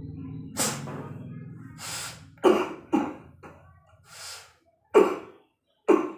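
A man coughing, four hard separate coughs with noisy breaths drawn between them: the cough of a patient suffering from a cough and shortness of breath.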